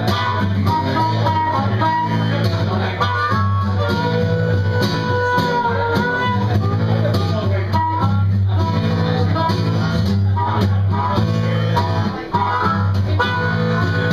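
Acoustic guitar strumming a steady rhythm while a harmonica plays a bluesy instrumental lead of long held notes over it.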